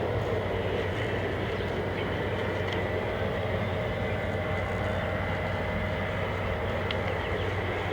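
A steady mechanical drone, a constant low hum under an even noise, unchanging throughout, with a couple of faint ticks.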